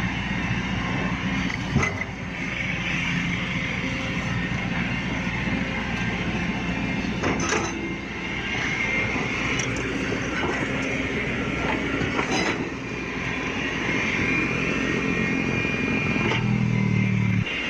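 Caterpillar hydraulic excavator working: a steady diesel engine drone with a high hydraulic whine, and a few sharp knocks. The engine note grows louder and heavier for about a second near the end, as if under load.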